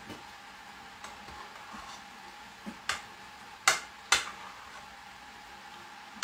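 A spoon stirring potato salad in a pot, with three sharp knocks of the spoon against the pot about three to four seconds in, the last two loudest.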